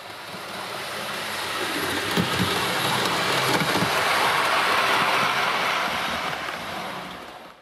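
Hornby OO gauge model HST running past on the track: a steady whirring rattle of motor and wheels with a few clicks, swelling as it approaches, loudest about halfway through, then fading.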